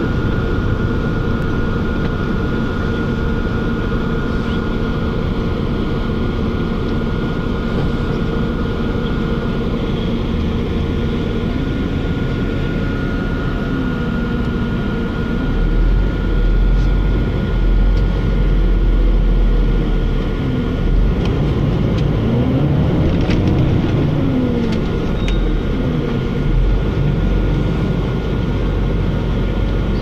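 Cabin noise of a moving bus: steady engine and road rumble, with the engine note rising and falling several times in the second half as it speeds up and slows down, and heavier low rumbling in stretches.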